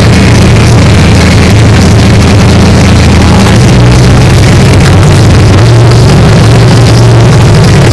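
Tractor engine running loud and steady, its low drone shifting slightly in pitch about three and a half and six seconds in.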